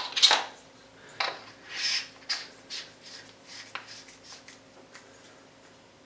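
Metal flashlight head being screwed back onto its battery tube by hand: threads scraping and clicking, with a few strong rasps in the first two seconds, then lighter clicks that fade away.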